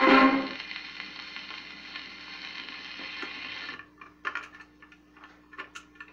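The closing chord of a 78 rpm record on a 1961 Arvin portable record player dies away, leaving surface hiss and a low steady hum. A little before the middle the hiss stops and the player's mechanism clicks and ticks several times as the tonearm comes off the record.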